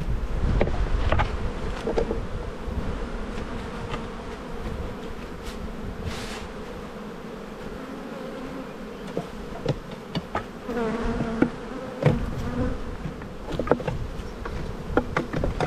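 Honeybees buzzing in a steady hum around an open hive, with scattered sharp wooden knocks and clicks as frames are set into a new hive box.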